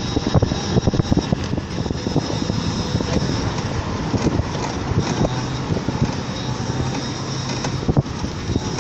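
A vehicle in motion: steady running noise with a low hum and frequent small rattling knocks, one stronger knock near the end.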